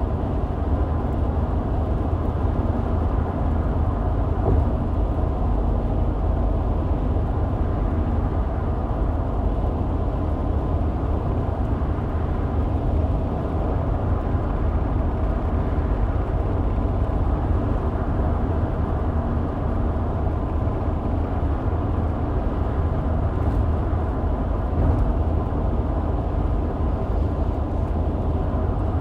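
Car driving at a steady pace: a continuous low rumble of road and engine noise, even throughout.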